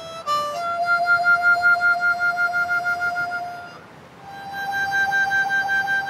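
Diatonic harmonica in C playing a slow blues riff. A couple of short notes lead into a long held note, then after a brief break it slides up to the octave. That top note is held with a pulsing hand tremolo from cupped hands.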